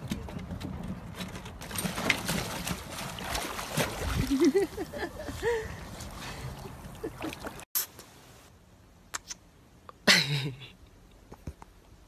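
Water sloshing and splashing against a wooden dock, with a few short whining calls about halfway through. Then a single loud cat meow, falling steeply in pitch.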